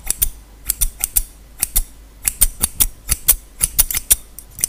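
Metal scissors snipping close to a condenser microphone: sharp, crisp snips, about four a second, with short pauses between runs.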